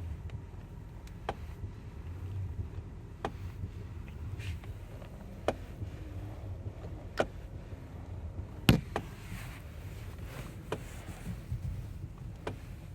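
Kia Ceed SW's steering wheel knocking: sharp single knocks every couple of seconds at uneven intervals, the loudest about two-thirds of the way through, over a low rumble from the car. The knock's cause is unknown.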